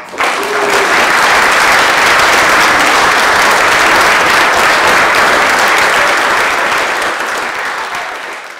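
Wedding guests applauding loudly: dense clapping that starts suddenly, holds steady, then fades toward the end.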